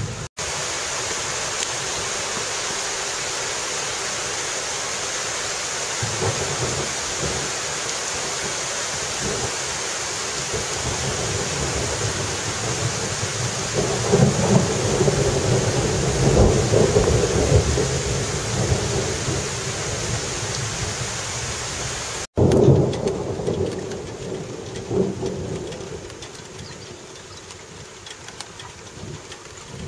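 Heavy rain falling steadily, with low rumbles of thunder swelling about halfway through. After an abrupt cut near the end the rain is quieter.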